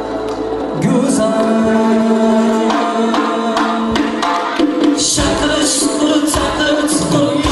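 Live band music with male singing, played on frame drums, flute, violin, long-necked lutes and keyboard. A long note is held in the first seconds, and frame-drum strokes come in strongly about five seconds in.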